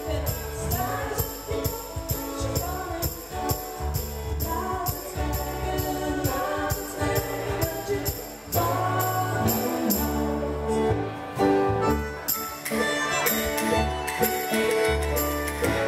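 Small live band playing a song: acoustic guitar, keyboard, drum kit and singing over a steady high percussion beat. A melodica comes in near the end.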